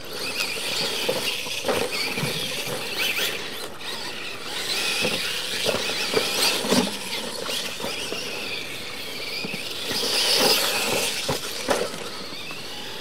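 Radio-controlled monster trucks racing on dirt, their motors and gears whining and rising and falling in pitch with the throttle. Several sharp knocks are scattered through, fitting the trucks landing off the jumps.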